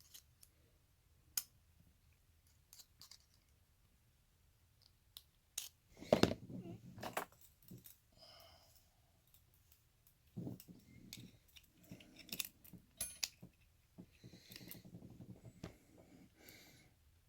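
Small metal padlock parts handled on a desk: scattered faint clicks and clinks, with busier stretches of clinking about six seconds in, past ten seconds, and again near the end.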